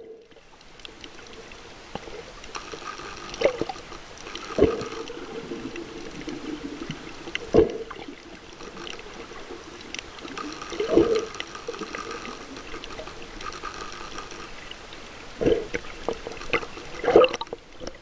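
Underwater sound picked up by a camera held below the surface while snorkelling: a steady muffled water hiss with faint clicks, and louder whooshing surges every few seconds.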